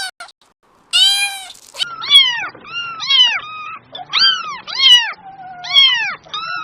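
A cat meowing in a rapid string of short calls, each rising and then falling in pitch, starting about a second in after a brief pause.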